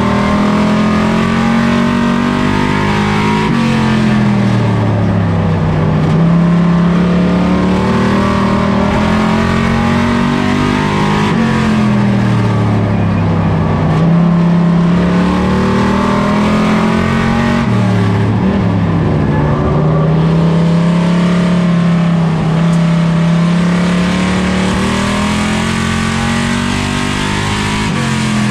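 Plymouth Duster race car's engine heard from inside the stripped, roll-caged cockpit while it laps an oval track at race speed. The engine note climbs steadily along each straight and drops off sharply into each turn, about every seven seconds.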